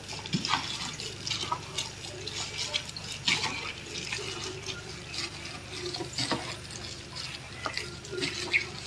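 Irregular wet squelching of raw chicken wings being squeezed and mixed by a plastic-gloved hand in a bowl of marinade, over a faint steady low hum.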